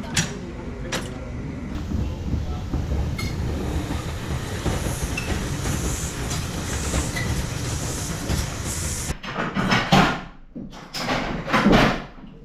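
Heritage railway train running along the line: a steady low rumble with a few sharp clicks. About nine seconds in it gives way abruptly to a quieter background broken by several short, loud sounds.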